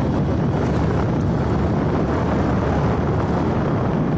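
Steady wind buffeting the microphone over the low rumble of a vehicle moving along a road.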